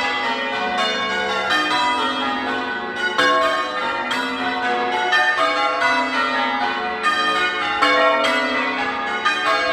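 Church tower bells change ringing: a ring of bells swung full circle and struck one after another in a changing order, making a rapid, even stream of strokes, each ringing on into the next.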